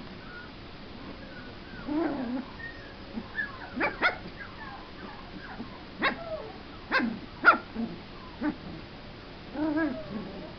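Small puppy yipping and barking during play: about six short, sharp yips in the middle, with a longer whiny note about two seconds in and another near the end.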